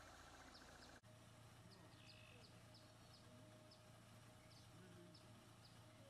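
Near silence: faint outdoor ambience with sparse, short, high chirps and a low steady hum. The sound briefly cuts out about a second in.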